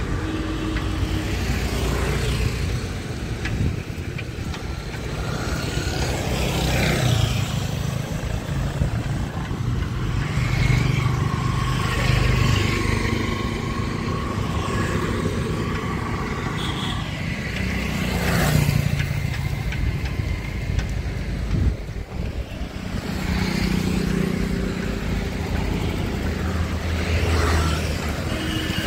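Road traffic heard from a moving vehicle on a city street: a steady engine and tyre rumble, with cars and scooters passing by now and then.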